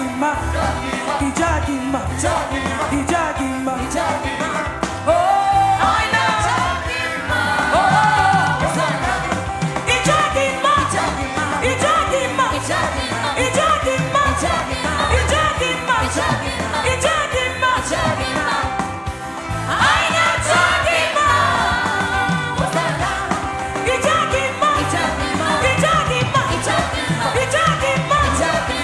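Gospel worship music: singing over a band with a steady low beat.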